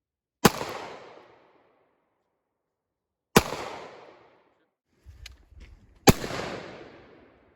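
Three gunshots about three seconds apart, each followed by an echoing tail of about a second. A few light clicks and handling knocks come just before the third shot.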